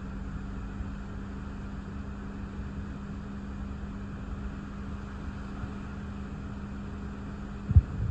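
Steady low hum of a car idling, heard from inside the car, with a low rumble and hiss of wind and rain beneath it. Near the end a sudden loud low thump comes, and the hum cuts off.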